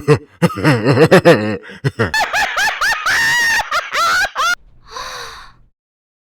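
Comic vocal sound effects: a low-voiced laugh, then a high-pitched squeaky giggle of quick rising-and-falling notes, ending with a short breathy gasp about five seconds in.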